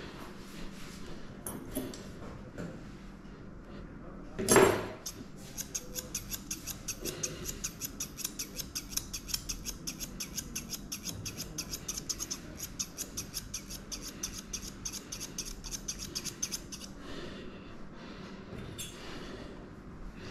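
Grooming scissors snipping a schnauzer's coat: a steady run of quick cuts, about three or four a second, from about five seconds in until near the end, with a few scattered snips before and after. A short, loud noise about four and a half seconds in is the loudest sound.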